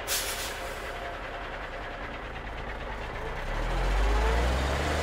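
A truck engine running, with a short hiss right at the start; its low rumble grows louder about three and a half seconds in.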